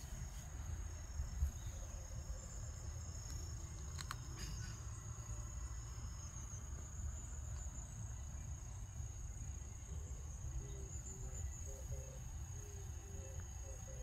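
Insects trilling in a steady, high, unbroken tone, over a low rumble, with a few faint clicks about four seconds in.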